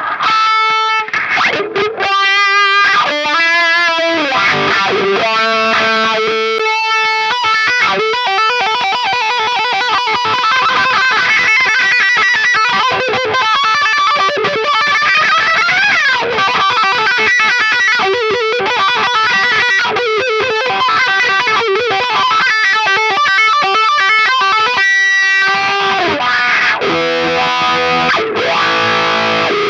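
Electric guitar played through a Dunlop GCB95 Cry Baby wah pedal: a few held notes, then a fast run of notes with a string bend about halfway, and held notes again near the end.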